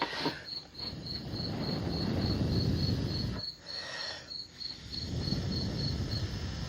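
A cricket chirping steadily in an even high-pitched pulse, about three chirps a second. Twice there is a low rushing noise lasting a couple of seconds.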